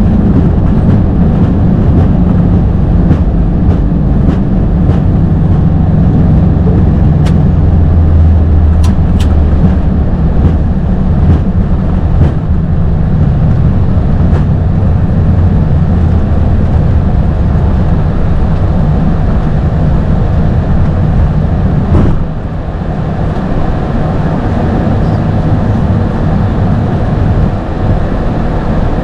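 Steady low rumble of an Airbus A220-300 in motion, heard from inside the cockpit, with scattered faint ticks. A sharp knock about three-quarters of the way through is followed by a slightly quieter rumble.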